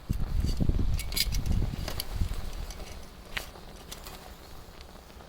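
Eggplant juices sizzling and popping over hot charcoal, with scattered sharp crackles. A loud low rumble covers the first two seconds.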